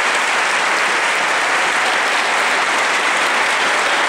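Audience applauding steadily, a dense even clapping with no letup.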